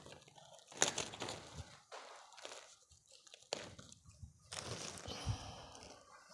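Hands scooping and handling loose vermicompost: irregular crunching and rustling, with a few sharper scrapes.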